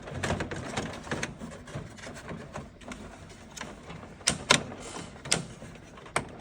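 Plastic rattles, knocks and sharp clicks of a coin validator being slid back into a vending machine's coin mech, with a few louder clicks in the second half as it seats.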